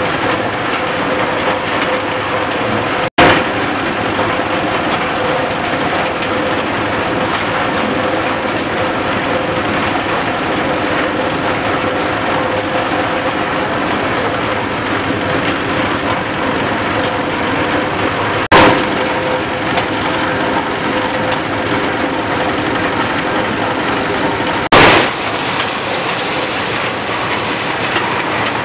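Engine-driven corn sheller running, a loud steady mechanical din with a held hum. It is broken three times by a brief loud crack.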